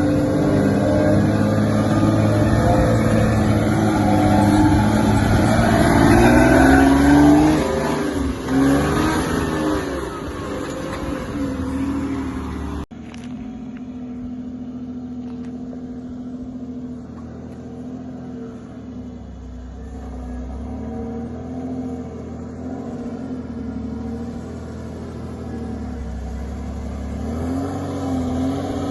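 Toyota Land Cruiser 80 series engine revving under load, climbing in pitch over the first seven seconds or so. After an abrupt cut about thirteen seconds in, it runs more quietly, its pitch rising and falling with the throttle.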